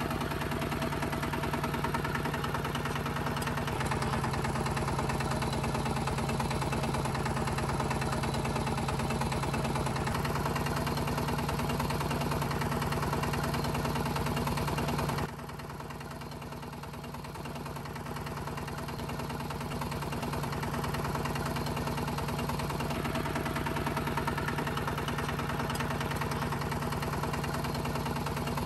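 Small motor of a home-made miniature tractor running steadily with a fast, even hum. About halfway through the level drops suddenly, then climbs back over a few seconds.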